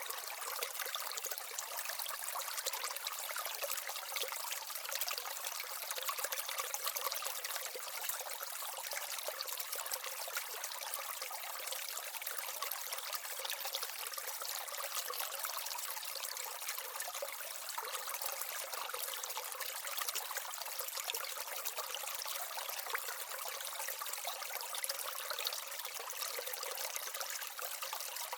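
Small waterfall in an aquaterrarium trickling steadily into its stream: a continuous thin splashing with no low rumble.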